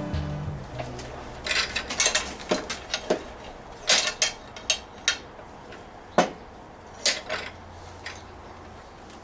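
Irregular metallic clinks and knocks from exhaust pipe and tools being handled, a dozen or so separate strikes with the sharpest about six seconds in.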